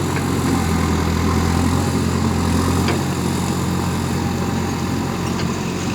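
JCB backhoe loader's diesel engine running steadily at low revs, with a few faint ticks.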